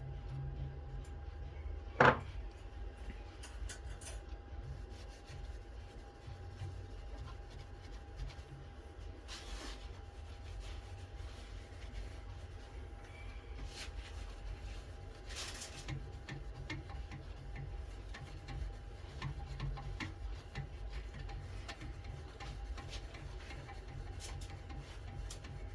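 Workshop hand work on wood: light rubbing and scraping, with one sharp knock about two seconds in and a couple of short rasping strokes later, over a faint steady hum.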